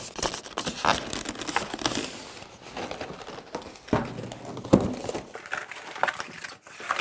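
Packaging crinkling and rustling as it is handled during unboxing, with scattered knocks and clicks, the sharpest a little under five seconds in.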